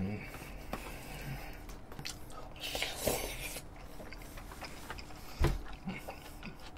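Close-miked chewing of a mouthful of spaghetti, with a few soft clicks and knocks of a wooden spoon against plastic takeout containers; the sharpest knock comes about five and a half seconds in.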